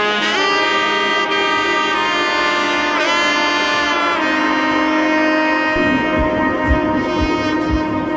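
Background music: long held melodic notes, with pitch slides about a second and three seconds in. A steady kick-drum beat of about two hits a second comes in near the end.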